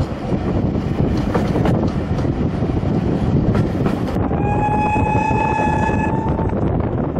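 Steady rumble of a steam-hauled passenger train running along the track, with wind on the microphone at the carriage window. About four seconds in, the GWR 4200 Class 2-8-0T tank locomotive's whistle sounds one steady high note for about two seconds.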